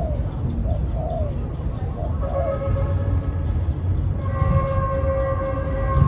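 Spotted dove cooing in short rising-and-falling notes. From about two seconds in, a long steady horn-like tone sounds over a low rumble.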